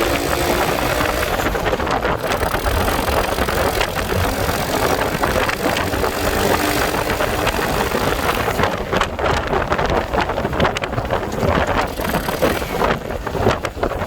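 Icebear Fuerza motorcycle engine idling steadily after a cold start that needed starter fluid sprayed into the air filter, with wind buffeting the microphone.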